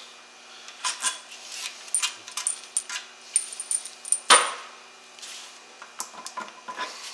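Small metal transmission parts, such as bolts and dowel pins, clinking and clattering as they are handled and set down, with one louder knock about four seconds in.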